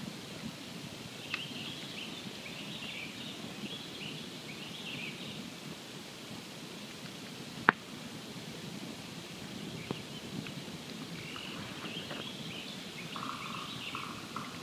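Campfire burning with a steady low rush, a few small crackles and one sharp, loud pop of burning wood a little past halfway.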